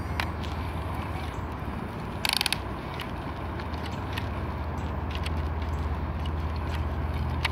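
Small electric motors and gearboxes of a Double E 17-channel RC toy excavator whirring as the upper body swings round and the boom lifts, with a short loud burst of rattling clicks a little over two seconds in.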